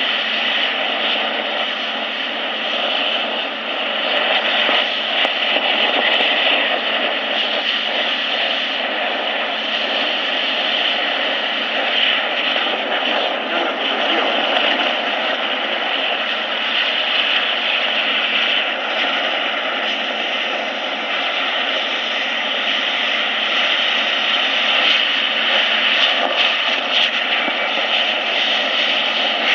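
SPRAYtec UMAP 60 mist cannon running, its fan blowing a jet of water fog: a steady, even rushing noise like a jet engine.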